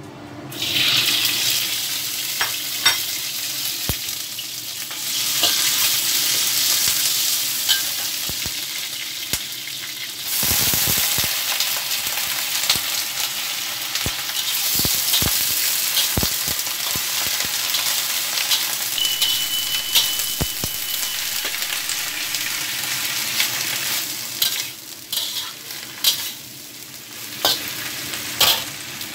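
Indian lettuce stir-frying in hot oil in a wok: a loud sizzle, with a metal spatula scraping and clicking against the pan as the leaves are tossed. The sizzle starts just after the beginning and thins out and breaks up over the last few seconds.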